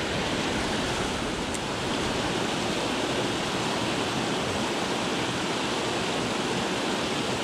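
Water pouring steadily over a low dam's spillway, an even rushing of white water.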